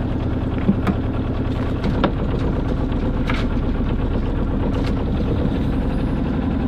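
Sailboat's auxiliary engine running steadily as the boat motors out of its slip, with a few faint knocks and clicks scattered through.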